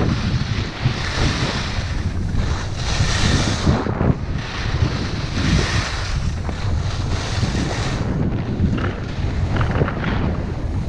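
Wind rushing over the microphone of a skier's camera during a downhill run, with the hiss of skis scraping over packed snow swelling and fading with each turn.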